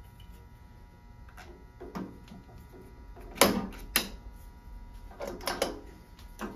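Sharp metal knocks as a screwdriver is driven into the drift slot of a drill press quill to knock out the Morse taper 2 chuck arbor: a few light clicks, then two sharp strikes about half a second apart, then smaller clinks as the chuck comes free.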